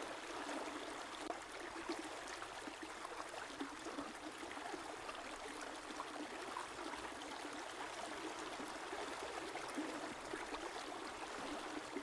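A river or stream flowing and babbling steadily over stones, a continuous gentle rush of water.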